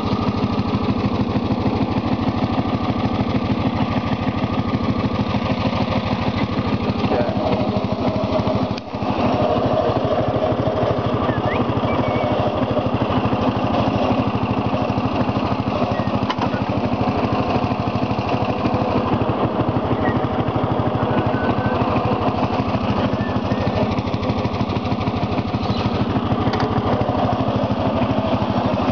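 Lawn tractor's small engine running steadily, with one brief drop in loudness about nine seconds in.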